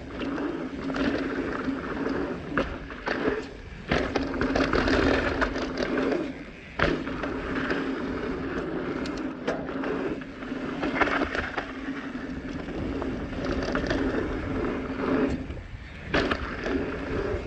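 Transition Smuggler full-suspension mountain bike descending dirt singletrack: continuous rolling tyre noise with frequent knocks and rattles as it hits bumps, and a few brief lulls.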